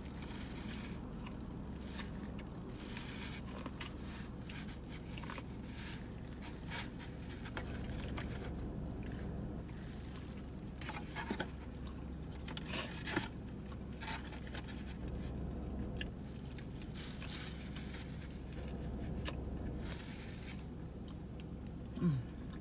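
A person biting and chewing corn on the cob, with scattered clicks and scrapes from handling a styrofoam takeout container.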